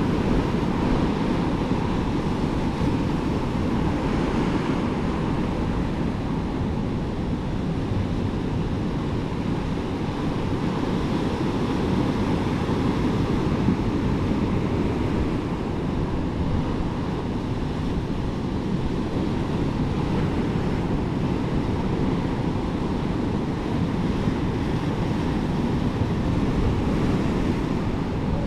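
Ocean surf washing steadily on the beach, with wind buffeting the microphone.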